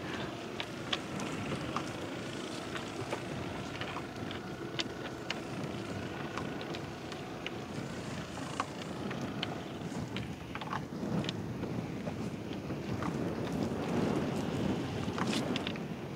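Wind buffeting the microphone in the open air, with scattered small clicks and knocks and a faint steady hum that fades out about halfway through.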